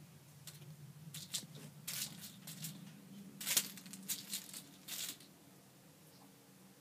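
Bedspread fabric rustling and scuffing as a kitten jumps, lands and scrambles after a toy swinging above her: a run of short, quick rustles over about five seconds, loudest about halfway through, then settling.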